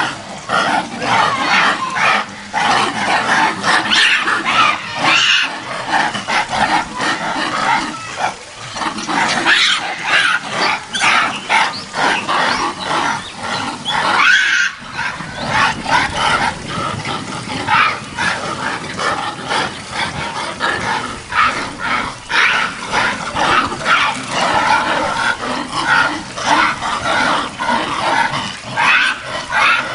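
A troop of macaques fighting: a continuous commotion of many overlapping shrill calls and screams, with a brief lull about halfway through.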